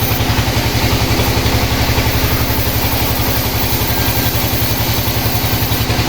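Sawmill engine running steadily at an even speed, with a rapid, regular low beat of about a dozen pulses a second.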